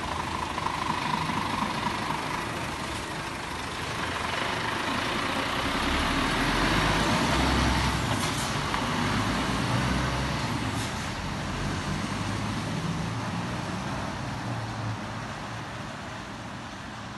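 Diesel engine of a heavy tipper lorry with a crane grab arm driving past close by. It grows to its loudest about halfway through and then slowly fades as the lorry moves off, with a couple of brief hisses in between.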